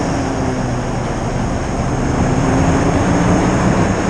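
Rescue hovercraft running at speed over water, its engine and propellers making a steady loud drone with a low hum that wavers slightly in pitch.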